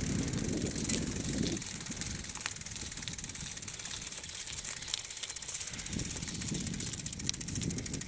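Bicycle being ridden over a rough dirt forest track: the tyres and bike rumble on the ground, strongest in the first second and a half and again near the end, over a fast, even ticking.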